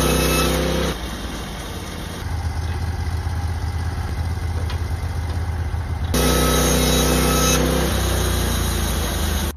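Norwood LumberPro HD36 portable bandsaw sawmill running, its gas engine giving a steady note while the band blade saws through a dry white pine log. About a second in the sound turns lower and rougher, and about six seconds in the steady engine note returns.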